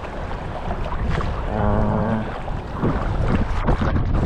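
Wind buffeting the microphone over sea water sloshing around a wading angler, with a short pitched sound near the middle, like a brief hum.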